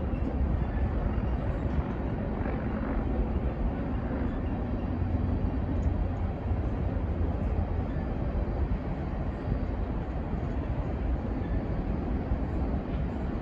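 Freight train of coal hopper cars rolling past: a steady rumble of steel wheels on the rails, heaviest in the low end and even throughout.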